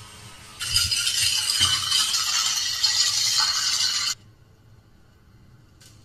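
Battery-powered mini desktop vacuum cleaner running and sucking up scraps of paper, a steady hiss with the scraps rattling as they are drawn in. It switches on about half a second in and cuts off suddenly about four seconds in.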